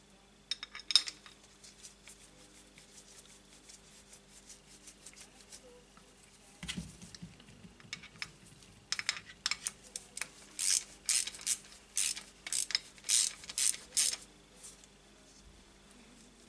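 Small hand ratchet clicking in a run of short strokes, about two a second, turning a bolt on a motorcycle footrest plate and brake master cylinder. Earlier there are light metal clinks and a single thump.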